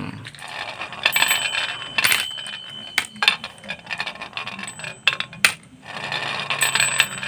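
Hard toy vehicles being handled and moved about: irregular sharp clicks, clatter and scraping, with a faint metallic ringing.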